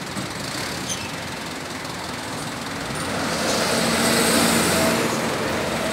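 A motor vehicle passing on the road, its engine and tyre noise swelling about three seconds in and fading away near the end.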